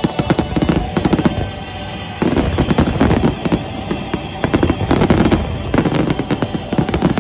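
Fireworks going off in quick bangs and crackles, with music underneath; the barrage gets louder about two seconds in.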